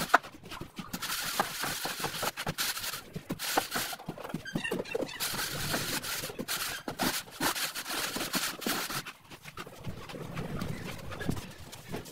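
A wooden screed board scraping across a damp sand-and-cement floor screed as it is levelled, rasping sweeps broken by frequent irregular knocks.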